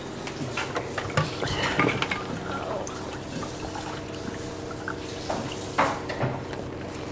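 Scattered light clinks and knocks of household dishes or utensils being handled, over a steady low room hum.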